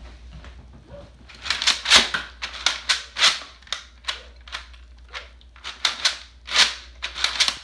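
Toy spit-wad blaster being fired again and again: its trigger mechanism clacks and snaps in an irregular run of sharp clicks, about two or three a second, starting about a second and a half in. Some pulls shoot two wads at a time.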